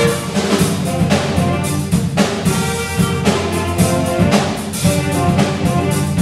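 Jazz big band playing live: brass and saxophone sections over drums.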